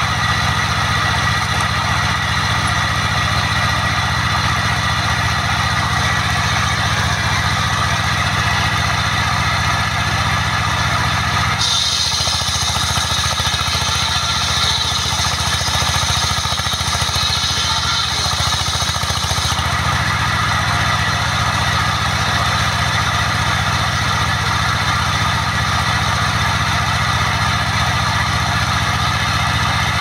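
Engine of a trailer-mounted portable sawmill running steadily. From about twelve to twenty seconds in, a hiss rides over the engine as the saw cuts through a plank, then the sound falls back to the engine alone.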